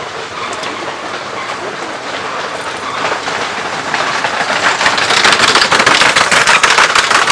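Locomotive-hauled train rolling past close by, its wheels clacking over the rail joints. It gets louder about halfway through.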